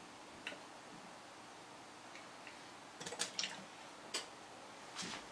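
A few faint, irregular clicks and taps as a glass measuring cup and a plastic bottle of vegetable oil are handled on a kitchen counter, with a small cluster of clicks about three seconds in.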